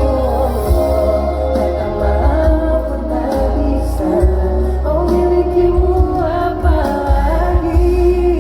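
Live band playing a slow pop ballad, with voices singing over a steady low bass.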